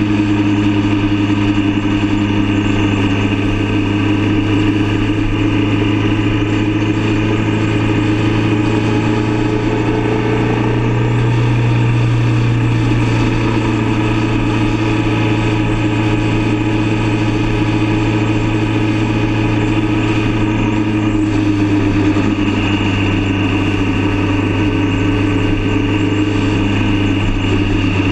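Motorcycle engine running steadily at cruising speed. Its note shifts slightly about ten seconds in and again a little past twenty seconds.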